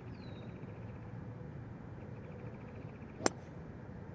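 A hybrid golf club striking the ball on a full swing: one sharp click about three seconds in, over faint outdoor background.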